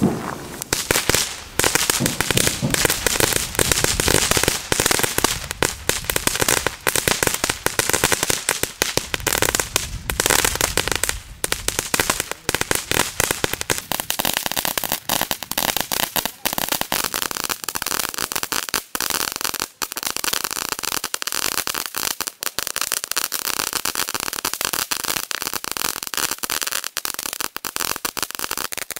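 Crackling ground fountain firework throwing out sparks with a dense, unbroken crackle of rapid small pops. It starts loudly about half a second in and keeps crackling throughout.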